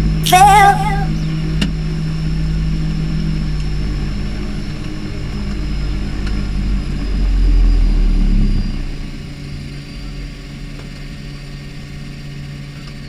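Twin Otter's Pratt & Whitney Canada PT6A turboprop engines running on the ground, heard inside the cockpit as a steady drone with a low rumble. The noise swells about seven seconds in, then eases off and quietens.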